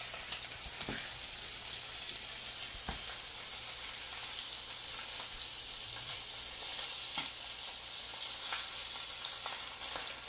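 Whole papio (juvenile trevally) pan-frying in hot oil with a steady sizzle, with a few light clicks scattered through. The sizzle swells for a moment about seven seconds in.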